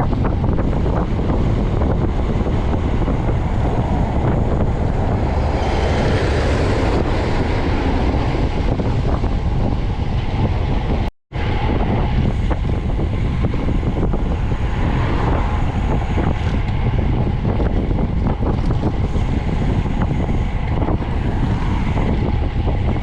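Wind buffeting the microphone of a camera on a moving bicycle, a steady low rumbling noise that cuts out for a moment about eleven seconds in.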